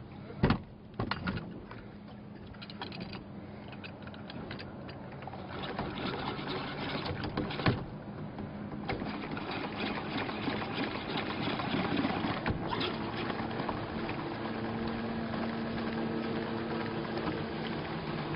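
DBest self-priming hand pump being cranked steadily by hand, its mechanism running with a rhythmic whir, and water pouring from its outlet and splashing over the side of the boat. A couple of sharp knocks come about half a second and a second in.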